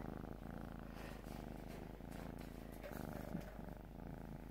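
Tabby cat purring steadily, close to the microphone.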